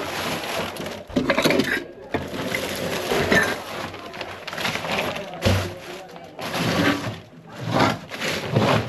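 Repeated bursts of cracking and crunching: wood or other material being broken and pulled apart.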